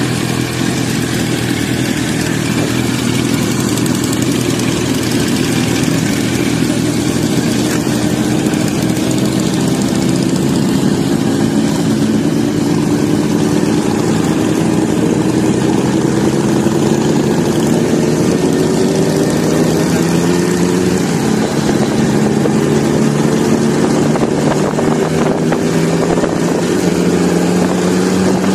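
Sport motorcycle engines running steadily at highway cruising speed, heard from a moving motorcycle, with an engine note that rises slowly through the second half as the bikes speed up. A steady rush of wind and road noise runs under it.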